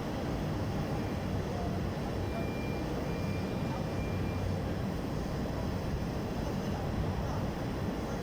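Steady low rumble of heavy industrial welding machinery running, with a faint thin high tone for a couple of seconds near the middle.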